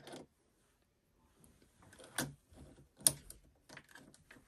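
Light plastic clicks and ticks as a rotary blade in its housing is fitted into clamp B of a Cricut Maker cutting machine: two sharp clicks about a second apart, with softer taps around them.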